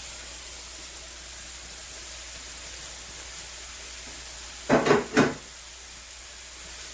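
Steady sizzling hiss of food frying in a pan on the stove, with two quick knocks of cookware about five seconds in.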